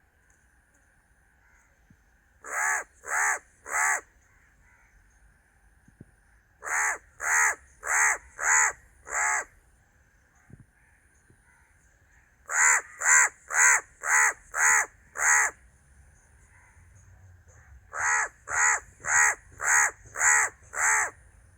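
A crow cawing in four bursts of three to six harsh caws each, about two caws a second, with pauses of a few seconds between bursts.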